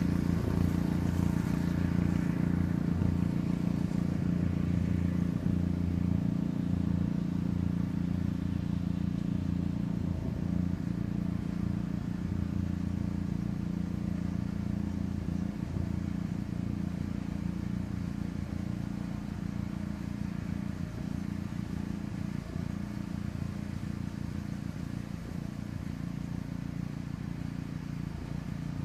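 Steady engine drone from a pickup truck towing a mower through tall grass, growing gradually fainter as the rig moves away.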